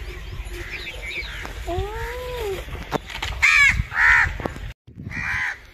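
Three short, harsh bird calls in the second half, over a low rumble.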